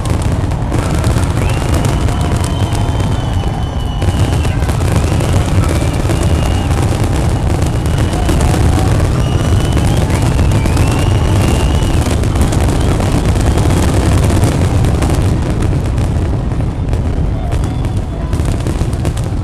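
Dense fireworks barrage: shells bursting in rapid, overlapping booms and cracks, with several high whistles drawn out over a second or two.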